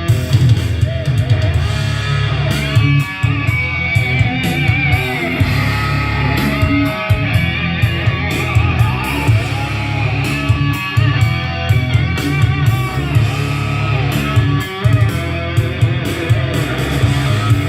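Rock music with electric guitar and heavy, dominant bass played loud through an onn. party speaker, with bass boost and outdoor mode on, at 60% volume.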